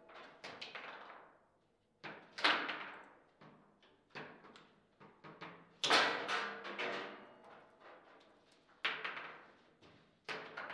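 Table football being played: the ball cracking against the plastic players and the table walls, with rods knocking, in sharp clusters every one to three seconds, each dying away with a short ring.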